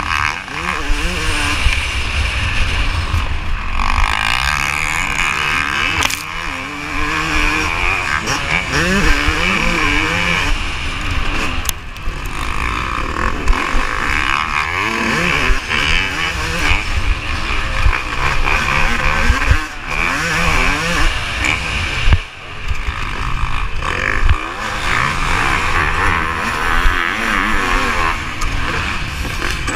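Yamaha YZ250 two-stroke motocross bike racing hard, its engine revving up and dropping off again and again through shifts and turns, with heavy wind rush on the microphone and occasional knocks from bumps.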